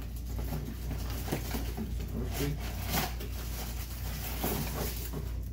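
Plastic shoe wrapping and a cardboard shoebox rustling and crinkling as a pair of sneakers is worked loose by hand, in an irregular string of short crackles and scrapes over a steady low hum.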